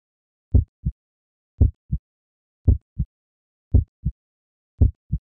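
Heartbeat sound, a steady lub-dub: five pairs of low thumps, the first of each pair louder, about once a second.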